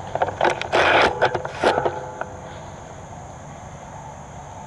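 Handling noise from a scope-mounted airsoft sniper rifle: a quick run of clicks and scraping in the first two seconds, loudest about a second in. After that only a faint, steady outdoor background.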